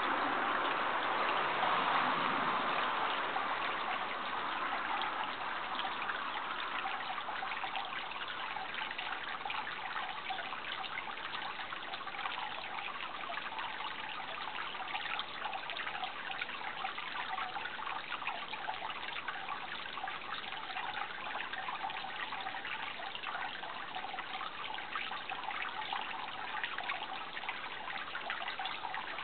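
Running water trickling and babbling steadily. A broader rushing sound is mixed in during the first few seconds and fades out.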